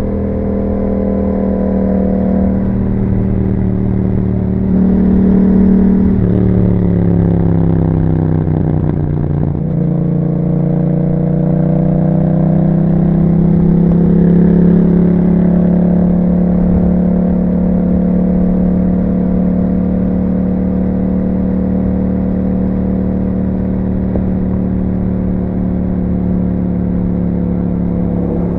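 2021 Yamaha MT-07's parallel-twin engine through an Akrapovic exhaust, on the move. Its pitch steps up and down in the first few seconds, slides down as the bike slows about six to ten seconds in, then climbs gently and settles into a steady cruise.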